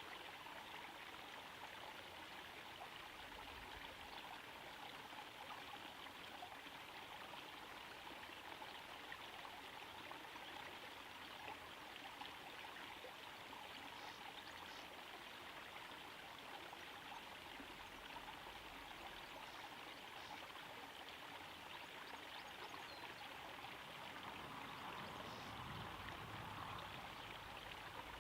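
Small garden pond waterfall trickling and splashing steadily into the pond, a little louder near the end.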